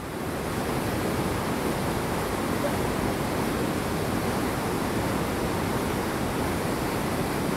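Rushing creek water flowing over rocks: a steady, unbroken hiss.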